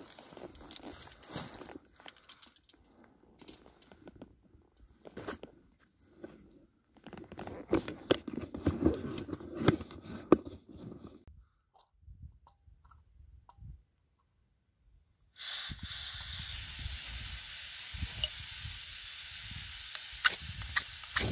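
Rustling and crunching of shrub branches and scuffs on rock as someone pushes through low scrub, with scattered knocks of the camera being handled. After a few near-silent seconds, a steady hiss starts abruptly and runs on.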